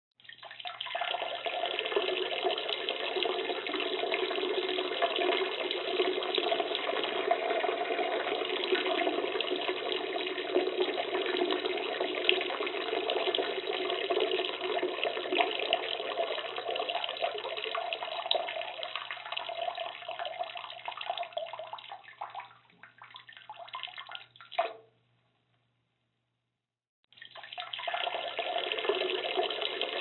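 Water running steadily. About 22 seconds in the flow grows broken and fades, stopping near 25 seconds; after two seconds of silence it starts running again.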